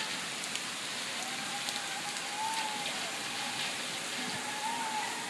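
Steady rain falling: a continuous hiss peppered with the ticks of individual drops. A faint wavering tone sounds twice in the background.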